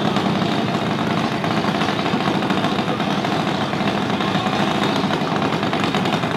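Junior dragster's small single-cylinder engine running steadily at idle, a fast even rattle.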